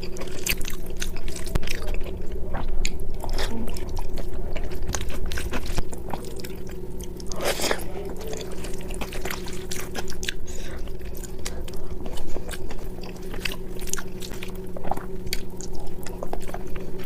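Close-miked chewing of rice with dal and mashed bhorta: soft, wet mouth sounds with many small sharp clicks, and a longer rustling scrape about seven and a half seconds in. A steady low hum runs underneath.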